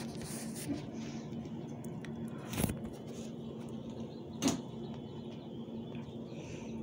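Two brief knocks, about two seconds apart, over a steady low hum and faint room noise.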